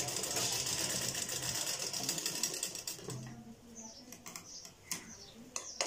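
Ansar sewing machine running and stitching a seam in lightweight fabric for about three seconds, then stopping; a few light clicks from handling the machine and fabric follow.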